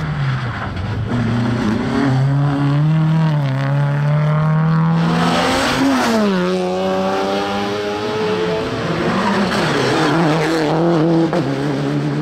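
Rally car engines working hard on a tarmac stage. First a classic Volvo 140-series saloon accelerates, its engine note rising and stepping through gear changes. About halfway through, a Citroën DS3 rally car's engine is heard, its pitch falling as it brakes and passes, then pulling again.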